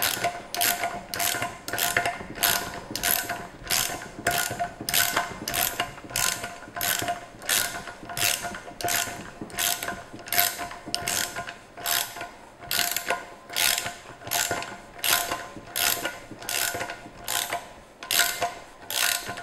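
Ratchet wrench working the centre nut of a billet-aluminium valve spring compressor on a BMW S52 cylinder head, clicking steadily at roughly two clicks a second.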